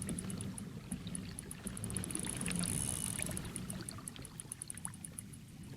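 Fishing reel clicking rapidly and evenly in a high-pitched run, over low sloshing water and hull noise from the kayak, as a big bass is brought in.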